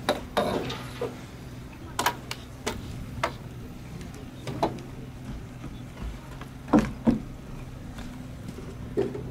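Irregular sharp knocks and clunks of fishing gear, a landing-net pole and rod, against the wooden pier railing and boards while a hooked fish is fought, over a steady low hum.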